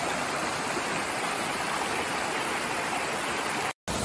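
Mountain stream flowing over rocks, a steady rush of water. Near the end it cuts out completely for a moment, then resumes.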